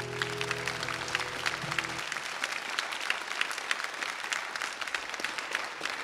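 Audience applauding, first over the song's held final chord, which stops about two seconds in, then on its own.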